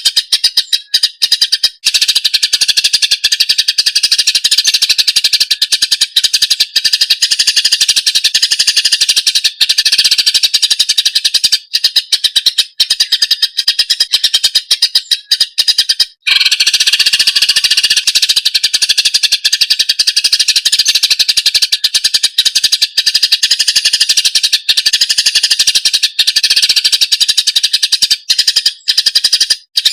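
Leafbird (cucak ijo) singing a loud, fast, continuous stream of high chattering notes, breaking off briefly about 16 seconds in before running on.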